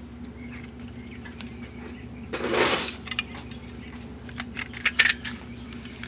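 Plastic housing of a Makita 18V lithium-ion battery pack being handled and fitted back together: a scraping rustle about halfway through, then a few short clicks near the end.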